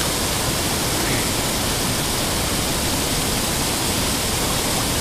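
Steady rush of ocean surf and shallow seawater washing over the sand, even and unbroken.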